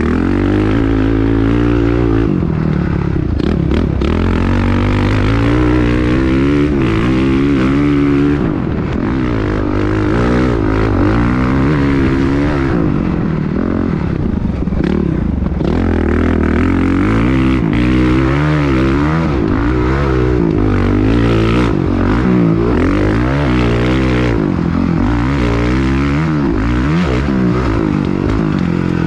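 Dirt bike engine being ridden hard, its revs rising and falling every second or two as the rider works the throttle and gears.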